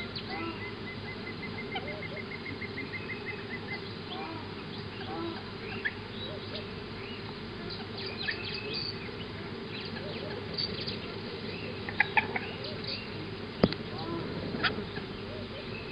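Outdoor bush ambience of birds chirping and calling. About half a second in, one bird gives a rapid trill of even notes lasting about three seconds. Underneath is a steady low hum, and a couple of sharp clicks come near the end.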